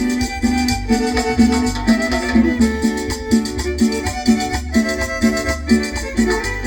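Chanchona band playing an instrumental cumbia break between sung verses: a melody of repeated chords over a bouncing bass, at a steady dance beat.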